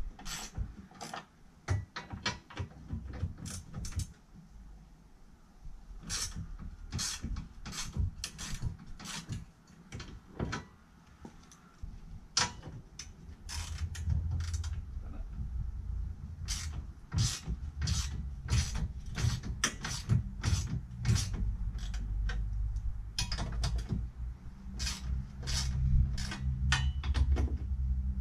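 Ratchet wrench clicking in short, irregular runs as the bolts holding a car's rear cross member are worked loose.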